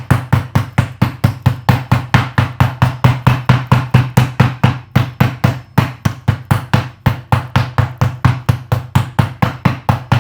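Meat tenderizer pounding boneless chicken leg meat under cling film: rapid, even blows, about four or five a second, each a sharp knock with a dull thud.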